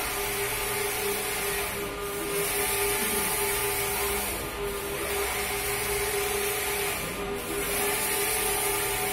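Large-format inkjet printer printing a flex vinyl banner: a steady hum and hiss as the print-head carriage sweeps across the roll. The sound dips briefly each time the carriage turns at the end of a pass, about every two and a half seconds.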